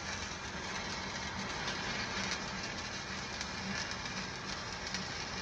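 Stick (shielded metal arc) welding arc crackling steadily as a bead is run in the flat position, with fine irregular pops throughout.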